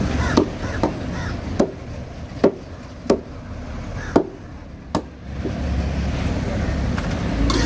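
A knife chopping through fish flesh onto a wooden cutting board: about seven sharp, separate chops at an uneven pace over the first five seconds. After that a low, steady rumble takes over.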